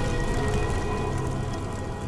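Background music: sustained tones over a steady low bass.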